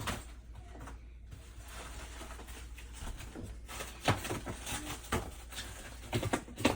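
A few short, scattered knocks and rustles of packaging and parts being handled during unpacking, mostly in the second half.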